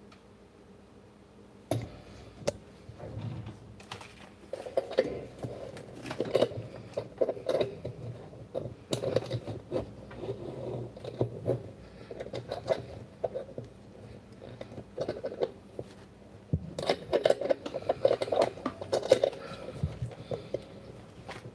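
Irregular rubbing, scraping and small knocks of handling close to the microphone, starting about two seconds in, as the camera is moved and repositioned.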